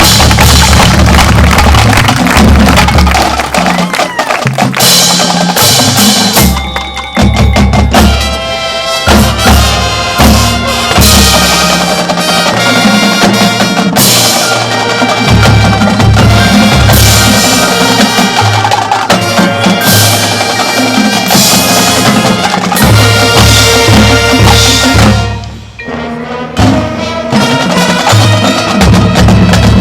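A marching band playing loudly, with held chords over prominent drums: bass drums and snare drum rolls under the melody. The music thins out briefly near the end, then comes back in full.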